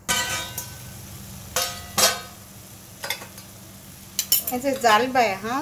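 Prawns sizzling as they fry in a pan, stirred with a metal spoon that clinks and scrapes against the pan several times, the first clink ringing as the sound starts.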